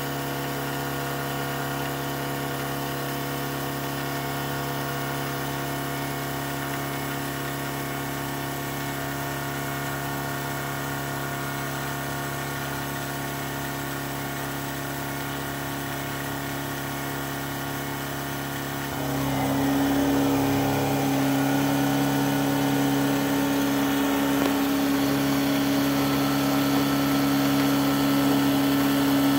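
Milling machine spindle running and an end mill cutting a metal soft-jaw blank at about 2100 rpm, a steady machining hum made of several even tones. About two-thirds of the way through, the cut gets louder and a stronger steady tone comes in.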